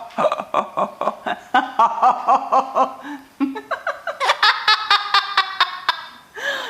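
Laughter in rapid, pitched bursts, pausing about halfway through and then starting up again.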